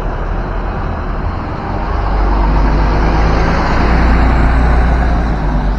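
A bus passing close by: low engine rumble and road noise that swells about two seconds in and is loudest around four seconds.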